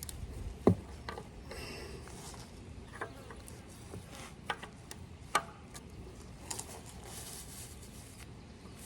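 Scattered knocks and clicks of things being handled, with stretches of rustling. The sharpest knock comes under a second in, with a few lighter ones after it.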